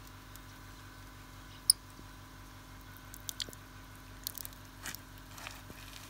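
Chrome faucet on a homemade wood-fired water heater's tank being opened: a few sharp clicks and taps, the sharpest about two seconds in. Near the end water begins to splash out of the spout.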